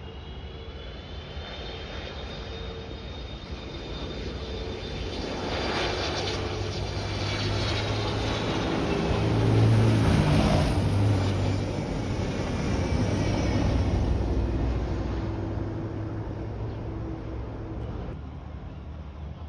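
Airbus A330-200 jet airliner landing past close by, its engines giving a steady whine with high tones that drift slowly down in pitch. The sound builds to its loudest about halfway through as the airliner passes, then fades.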